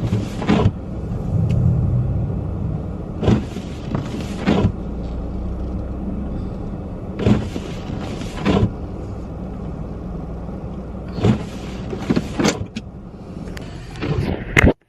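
Inside a running car in a snowstorm: a steady engine and heater rumble, with the windshield wipers on an intermittent setting making a pair of swishes, across and back, about every four seconds.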